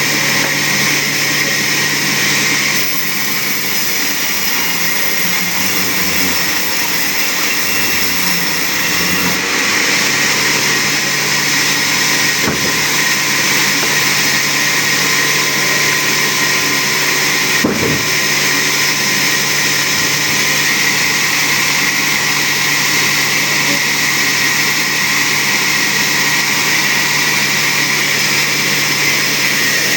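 Motor of a wood-cutting machine running steadily, a constant hum with a high hiss over it.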